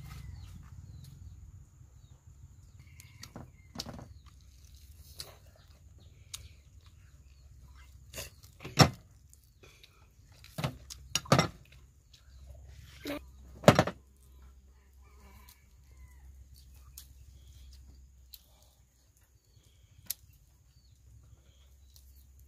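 Scattered sharp knocks and clicks, the loudest three about two and a half seconds apart, over chickens clucking.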